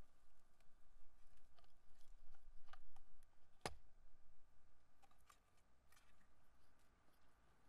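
Faint clicks and taps of a metal mounting bracket being fitted and screwed onto a wooden post, with one sharp click about three and a half seconds in.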